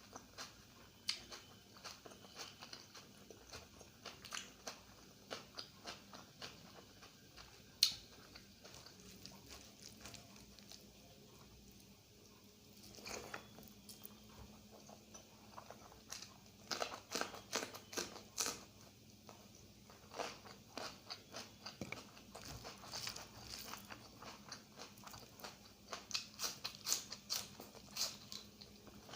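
Close-up mouth sounds of a person eating egg curry with rice: wet chewing, smacking and swallowing, with many small clicks from lips and mouth.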